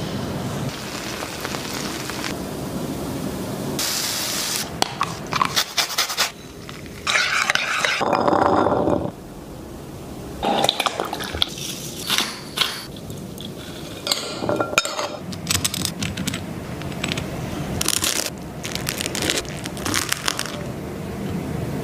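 Food-prep sounds: a metal spoon clinking and scraping in ceramic bowls, and a knife scraping a soft spread across crunchy toasted bread. They come as a string of separate clicks, crackles and scrapes with short noisy stretches between them.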